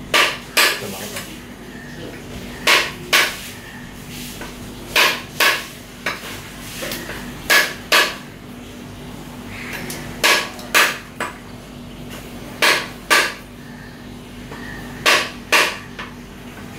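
A large knife striking a whole coconut shell to crack it open. The blows are sharp knocks that come in pairs, about half a second apart, with a pair roughly every two and a half seconds.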